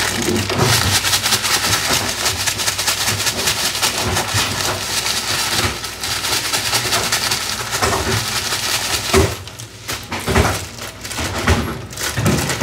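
A plastic bag shaken hard with chicken pieces and crumb coating mix inside: a dense, crackly rustling that stops about nine seconds in, followed by a few separate thumps and lighter rustles as the bag is handled.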